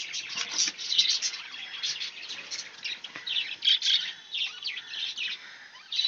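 Budgerigars chirping and chattering in a cage, many short high calls overlapping.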